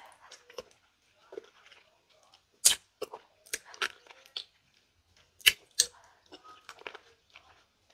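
Close-miked mouth sounds of eating santol (cottonfruit) flesh: wet chewing and sucking, with sharp smacking clicks. The loudest clicks come once about a third of the way in and twice close together past the middle.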